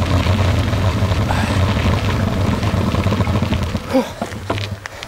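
Vehicle engine running with a steady low hum while rolling along a gravel road. It dies down about four seconds in as the vehicle stops, followed by a couple of sharp clicks.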